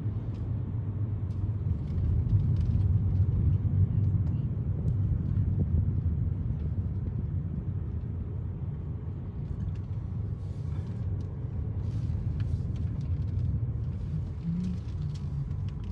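Car cabin road noise: a steady low rumble of engine and tyres, easing as the car slows. In the second half come scattered small clicks and pops from the tyres rolling over loose gravel.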